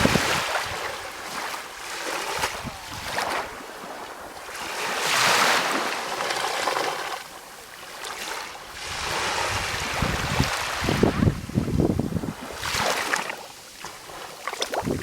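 Calm sea waves washing in, a rushing noise that swells and fades every few seconds, with wind buffeting the microphone in low rumbles about two-thirds of the way through.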